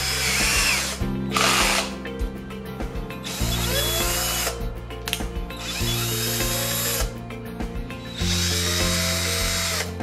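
Motor of a WORTEX BD 1425 DLI 14.4 V cordless drill-driver running free in short bursts, spinning up and down about five times, with a pause of about a second between runs.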